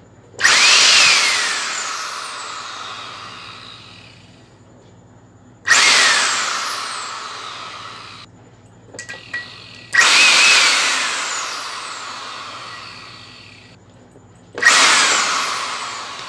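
The vacuum cleaner's 800-watt motor and blower fan, held in the hand, run four times in short bursts. Each run starts suddenly and fades away over a few seconds as the fan coasts down.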